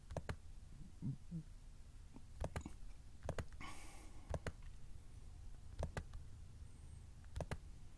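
Computer mouse clicking about a dozen times, mostly in quick pairs.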